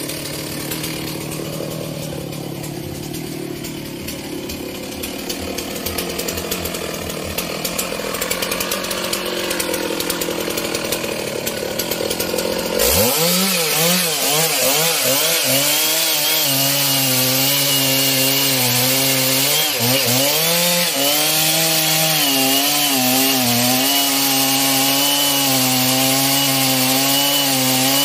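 Stihl MS 660 two-stroke chainsaw, running lower and quieter at first. About halfway through it rises abruptly to full revs and saws through a rain tree trunk, its pitch dipping and recovering as the chain works through the cut.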